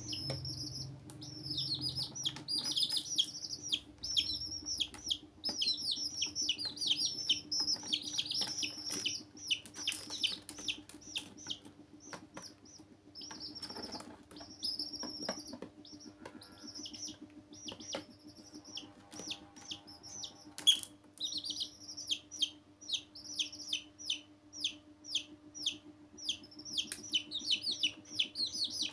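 Domestic chicken chicks peeping nonstop: rapid, high-pitched, downward-sliding calls from several birds at once. A steady low hum sits underneath, and one sharp click comes about two-thirds of the way through.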